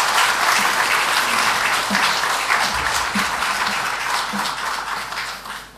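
Audience applauding in a hall: dense, steady clapping that stops fairly suddenly near the end.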